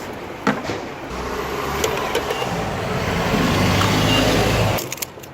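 A car's engine and road noise growing steadily louder for a few seconds, with a deep rumble building underneath, then cutting off suddenly near the end; a sharp knock about half a second in.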